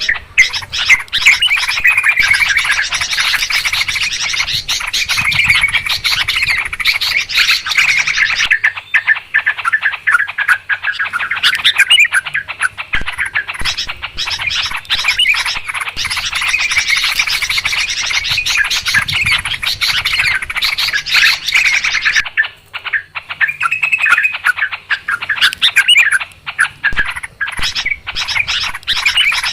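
Sooty-headed bulbuls calling in a busy flock, many quick overlapping chirps without pause, with brief lulls about a third and three-quarters of the way through.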